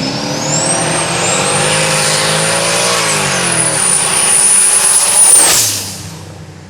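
Street-class drag cars accelerating hard down the strip, engines revving up through the gears with a high whine climbing and then held. There is a shift about three seconds in. The sound peaks and then cuts off suddenly near the end.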